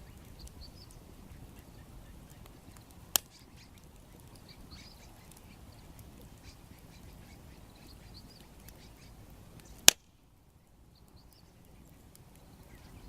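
Wood bonfire with two sharp pops from the burning wood, one about three seconds in and a louder one near the end, over a low steady rumble that drops away after the second pop. Birds call faintly throughout.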